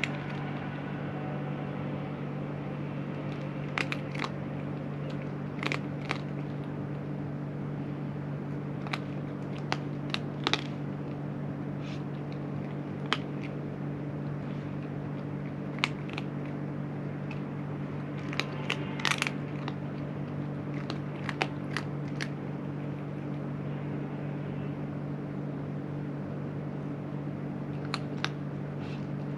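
A cat crunching its food in scattered irregular bites, over a steady low mechanical hum.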